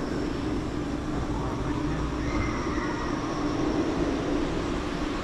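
Steady droning hum of a large swarm of show drones' propellers hovering overhead, a low wavering tone over a rushing background noise.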